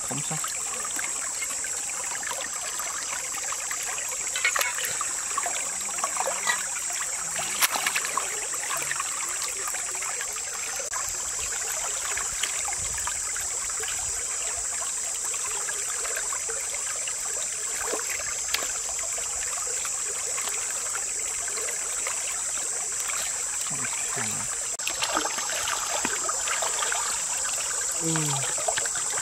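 Steady rush of a shallow stream, with short splashes and sloshing now and then as a large gutted catfish is washed by hand in the water.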